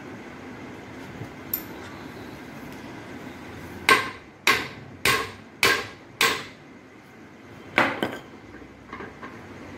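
Hammer blows on a metal steering center-pin assembly clamped in a bench vise, metal on metal with a short ring after each hit. Five sharp strikes come about half a second apart, then one more strike and a few lighter taps near the end.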